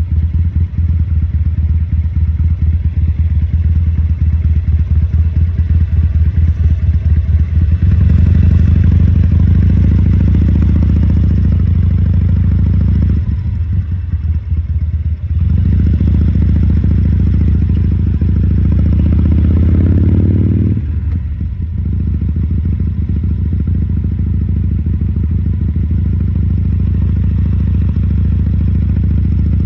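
Harley-Davidson Sportster 1200 air-cooled V-twin running at low speed under light, changing throttle. It pulls harder about a third of the way in, is backed off for a couple of seconds, picks up again with a brief rise in revs, then eases back to a steady low-speed run.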